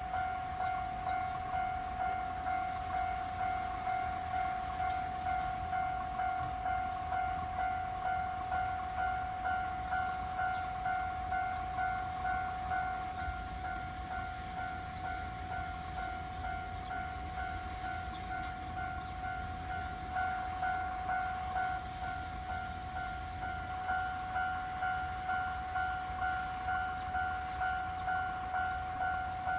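Japanese railway level-crossing warning bell ringing steadily, a repeated electronic ding at about one and a half strokes a second, signalling that a train is approaching.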